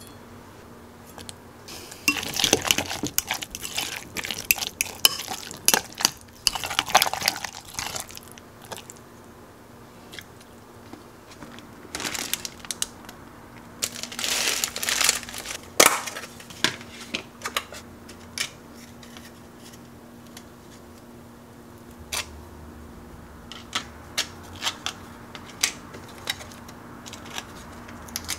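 Metal spoon stirring and scraping chunky guacamole against a glass measuring jug, then the plastic wrapper of a Finn Crisp crispbread pack crinkling as it is handled, followed by scattered light taps and clicks.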